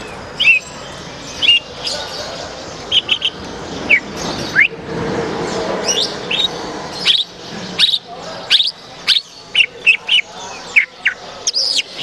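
Leafbird (cucak ijo) singing: a varied run of short, sharp chirps and quick whistled slurs, several a second, with irregular pauses.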